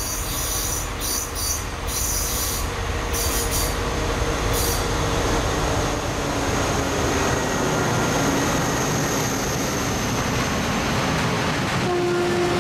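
Heavy freight train passing close: a diesel locomotive's engine runs as it draws near and goes by, then loaded spoil hopper wagons rumble past with rolling wheel noise. A steady wheel squeal sets in near the end.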